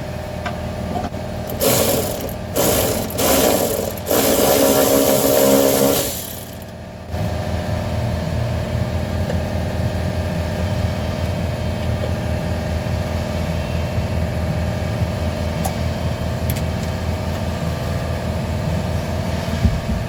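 An engine idling in the background with a steady low, fast-pulsing rumble. About two seconds in it is broken by several loud bursts of harsh noise lasting some four seconds, then it settles back to a steady idle.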